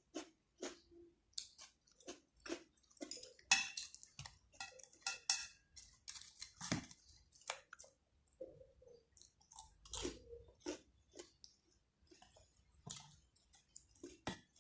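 Close-miked chewing and eating sounds: irregular wet mouth clicks and smacks, busiest a few seconds in, as a person eats ramen with kimchi and fried chicken.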